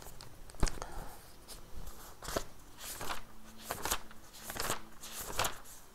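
Scattered short rustles and clicks, about ten spread irregularly, of things being handled on a desk close to the microphone.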